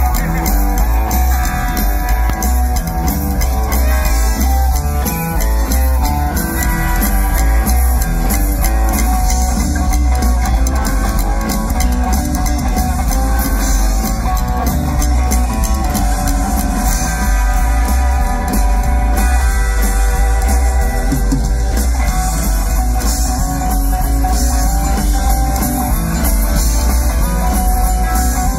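Live rockabilly band playing a rock song: upright bass, acoustic and electric guitars, drum kit and keyboard, loud and steady, with a heavy booming low end.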